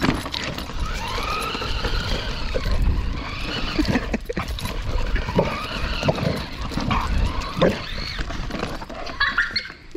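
A boxer dog vocalising excitedly as it goes after a remote-control toy car and bites at it, with short knocks. The toy car's electric motor whines up and down as it is driven.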